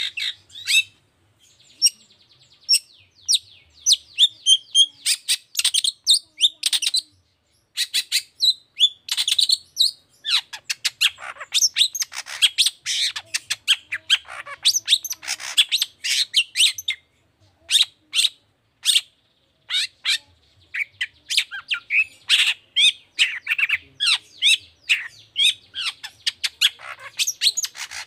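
Long-tailed shrike (cendet) singing: a fast, harsh chatter of short chirps and squawky notes, broken by brief pauses.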